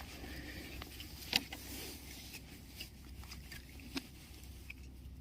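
Faint handling noises: rustling with a few light clicks, the sharpest about a second and a half in and again near four seconds, as a hooked sea bass and its deeply swallowed hook are handled.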